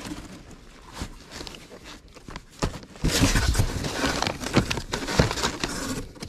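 Paper and envelopes rustling and crinkling as hands dig through a cardboard box of old cards and letters. There are light handling taps at first, then the rustling turns loud and dense about three seconds in.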